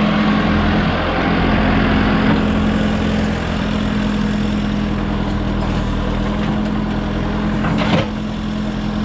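Engine of a backhoe running steadily as it works a pond bank with its extended boom, with a single knock about eight seconds in.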